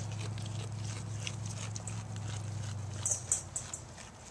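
A goat chewing and tearing off morning glory leaves close by: a run of quick crisp crunches and clicks, with a sharper cluster about three seconds in. A low steady hum runs underneath and stops at about the same point.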